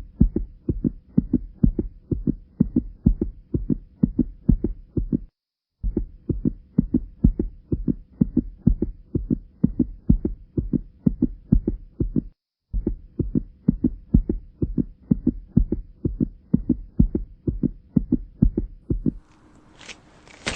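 Steady, muffled low thumping, about four beats a second, like an amplified heartbeat. It cuts off abruptly twice, as if edited.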